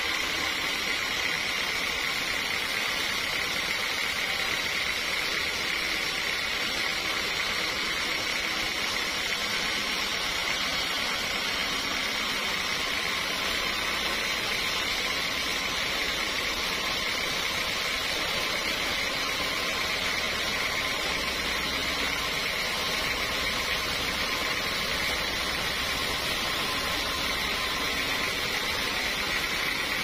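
Band sawmill blade ripping lengthwise through a large mahogany log: a steady, even high-pitched hiss of the cut, with a low rumble coming in about halfway.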